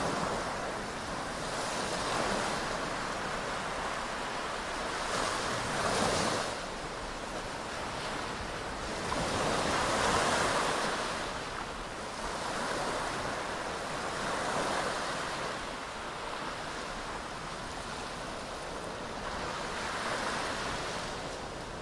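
Sea waves washing onto a beach, the surf swelling and fading every few seconds.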